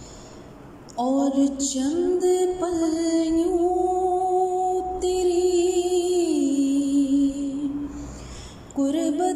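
A woman's voice singing a slow naat melody in long, drawn-out held notes with a slight waver. It comes in about a second in, falls away near the end, and a new note begins just before the end.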